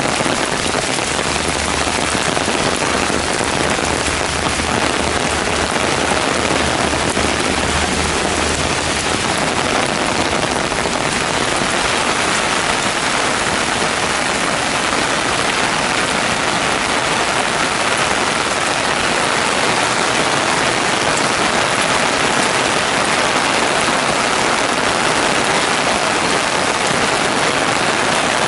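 Heavy downpour of rain hitting a paved path and the foliage around it, a dense, steady hiss. A low steady hum runs underneath for about the first ten seconds.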